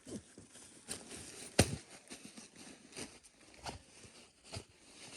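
Footsteps in snow, a step about every three-quarters of a second, the loudest about a second and a half in.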